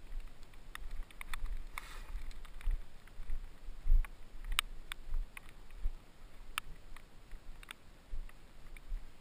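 Footsteps of someone walking a mountain bike up a muddy grass track, heard through a helmet-mounted camera: irregular low thuds as each step jolts the camera, with scattered sharp clicks and knocks in between.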